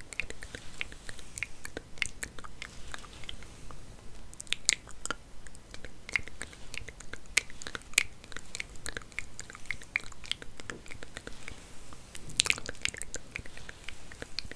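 Hair being combed and played with close to a sensitive microphone: dense, irregular crisp crackles and rustles, with a louder rustle near the end.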